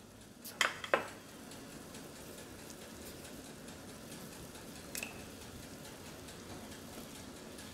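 A pot of pork broth simmering on the stove, a faint steady bubbling, with a few light clicks: two about half a second and a second in, one more around five seconds.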